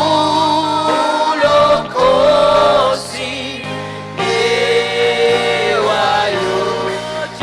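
Gospel worship song sung by a group of voices over steady instrumental chords.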